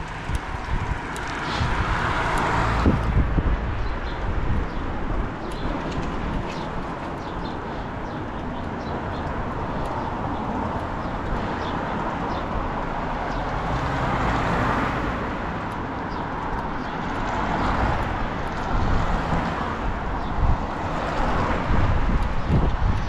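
Steady outdoor road and traffic noise with a low rumble, swelling several times as vehicles go by.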